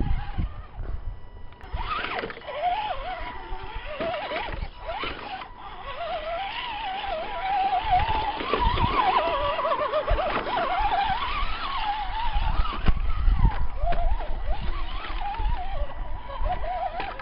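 Electric motor whine of a radio-controlled Axial Deadbolt truck, its pitch wobbling up and down as the throttle is worked while it climbs over rough ground. Wind rumbles on the microphone underneath.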